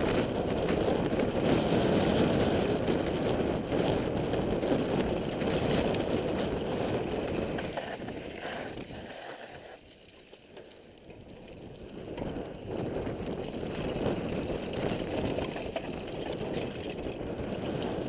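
Mountain bike rolling fast down a dirt trail: tyres grinding over dirt and the bike rattling over bumps as a steady rough rush. It drops off for a few seconds near the middle, then builds again.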